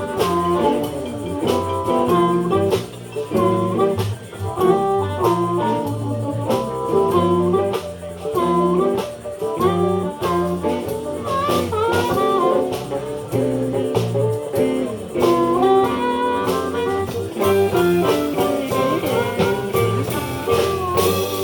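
Live blues band playing an instrumental break: a lead guitar solo over bass and drums.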